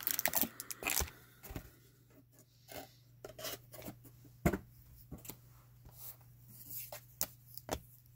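Handling noise of a foil-wrapped trading card pack and its cardboard hobby box: scattered soft rustles and clicks as the pack is slid out and set down, with one sharper knock about four and a half seconds in.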